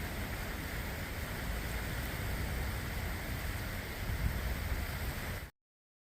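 Steady rushing of creek water flowing beneath the old railroad station's girders, with an uneven low rumble underneath. It cuts off abruptly about five and a half seconds in.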